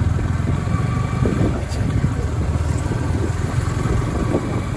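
Motorcycle running steadily at low road speed, a continuous low engine rumble.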